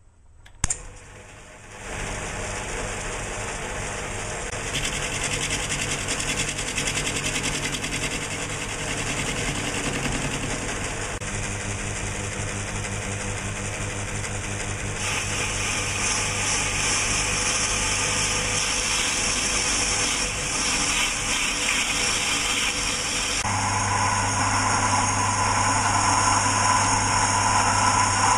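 Early-1950s Hercus metal lathe running, its electric motor turning an aluminium blank while it is cut. The sound changes abruptly every few seconds, with a sharp click about a second in.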